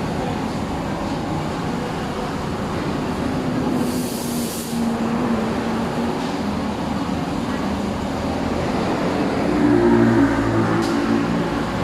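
Honda Civic running with a steady grinding rumble from inside its automatic transmission, the fault shown before the unit is opened. A brief hiss comes about four seconds in, and the engine note grows louder about ten seconds in.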